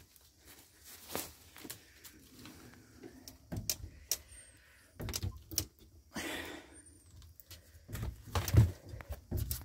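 Metal screen door being handled and pulled open: scattered clicks and knocks, a short scraping rustle about six seconds in, and heavier thumps near the end.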